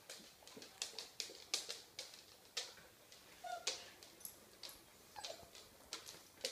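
Small dogs moving about and playing: a string of quick, irregular clicks and scuffs, with a brief squeak about halfway through.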